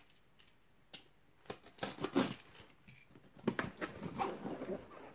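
A taped cardboard parcel box being handled and moved: scattered knocks, scrapes and rustles of cardboard and packing tape, coming in a few short bunches about one, two and four seconds in.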